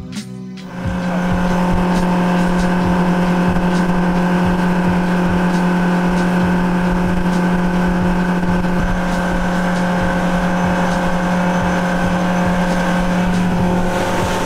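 Motorboat engine running at a steady cruising speed, one constant drone with no change in pitch, coming in about a second in after a short bit of music.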